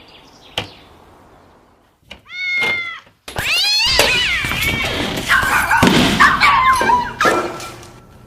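Domestic cat vocalising: a short meow, then a long, loud, drawn-out yowl lasting about four seconds, broken by rougher, noisy stretches. A single sharp knock comes about half a second in.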